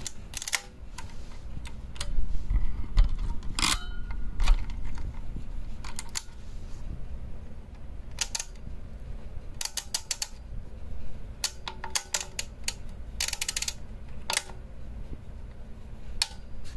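Felix-M pinwheel mechanical calculator clicking and ratcheting as its mechanism is worked by hand: single sharp clicks and several short clattering runs of clicks, with some low bumping a few seconds in.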